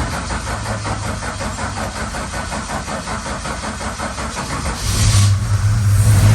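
A Valiant VH Charger's engine cranking over on the starter with a fast, even rhythm, then catching and running louder about five seconds in once fresh fuel reaches it. It had been stalling from running out of fuel.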